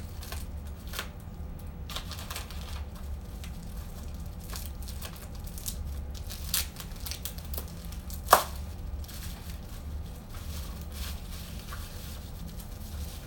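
A padded mailer and its plastic wrapping being torn and crinkled open by hand, with scattered small clicks and rustles. A sharp snap about eight seconds in is the loudest sound.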